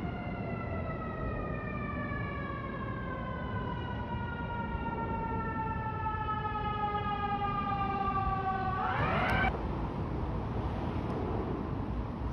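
Emergency vehicle siren wailing, its pitch sliding slowly down for most of the time, then sweeping sharply up again about nine seconds in before it cuts off suddenly.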